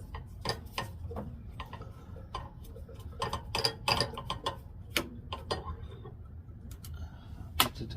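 Irregular light metallic clicks and taps of hand tools and small parts as the carburetor and choke linkage are worked off a Tecumseh snowblower engine, over a low steady hum.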